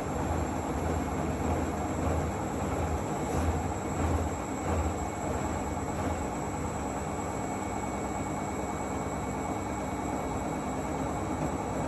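Zanussi AquaCycle 500 FA 623 washing machine running: a steady mechanical rumble of motor and drum. Low, rhythmic thumps come through it for the first five seconds or so, then it settles into an even rumble.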